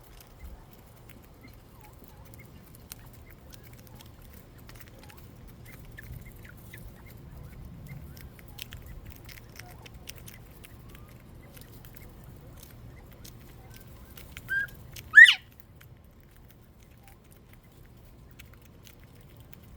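A northern bobwhite quail gives a two-part whistled call about fifteen seconds in: a short note, then a loud sweeping whistle. A faint low rumble runs underneath, with scattered small clicks.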